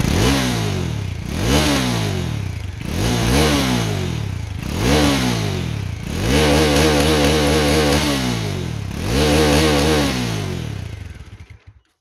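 Bajaj Dominar 400's single-cylinder engine revved in six throttle blips, the fifth held high for about two seconds. It breathes through only its underbelly exhaust, the side muffler removed. The sound fades out near the end.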